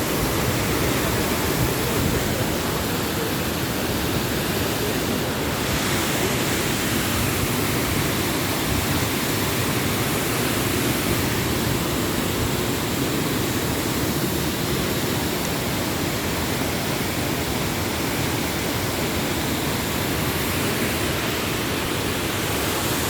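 Wahkeena Falls' water falling, a steady, even rush of noise.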